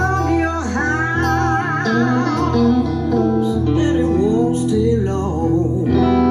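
Guitar music with a wavering melody line over a steady bass, played back through Klipsch LaScala AL5 horn loudspeakers.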